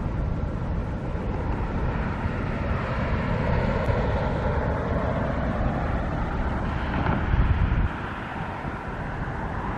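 Outdoor traffic noise with wind buffeting the microphone. A vehicle sound swells in the middle, and the low wind rumble eases about eight seconds in.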